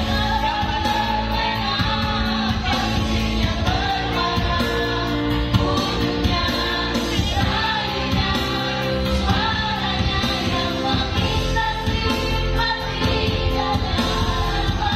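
Women singing into microphones through a PA system over an electronic keyboard accompaniment, the singing the uploader admits is off-key.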